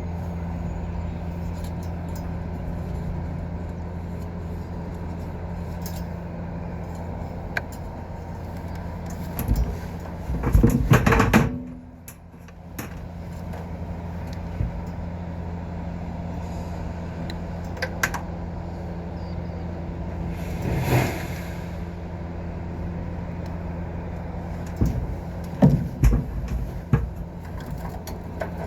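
A steady low machine hum, with loud knocks and rattles about ten seconds in, again around twenty seconds, and a few more near the end.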